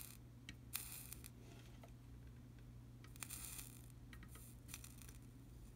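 Faint, short hisses of solder flux sizzling as a soldering iron tip touches the joints, three or four times, with a few light clicks.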